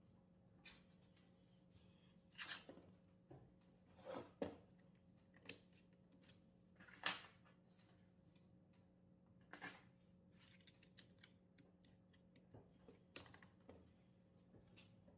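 Faint, scattered clicks and knocks of hand tools and wood being handled on a wooden workbench, over a faint steady hum.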